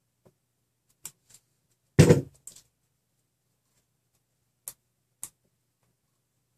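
Small sharp clicks of a plastic wire connector and its pins being handled and turned over in the fingers, with one louder thump about two seconds in.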